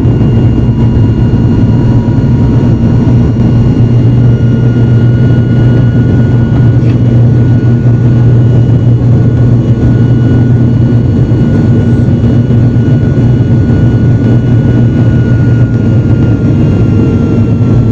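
ATR turboprop airliner's engines and propellers at takeoff power: a loud, steady low drone with a thin high whine that drifts slightly lower near the end.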